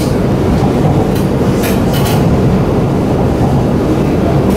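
Shanghai Metro Line 9 train running at speed, heard from inside the carriage: a steady loud rumble of wheels on rail, with a few brief high-pitched sounds between about one and two seconds in.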